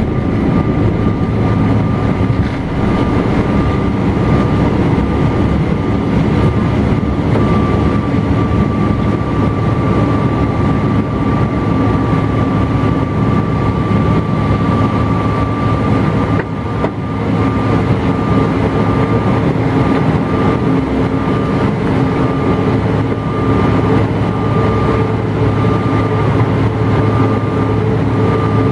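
Cabin noise of a Bombardier CRJ-900's rear-mounted GE CF34 turbofans running at high power through takeoff and initial climb: a steady rush of engine and air noise with a high whine held on one note. About 17 seconds in the noise dips briefly, and a lower steady hum joins after it.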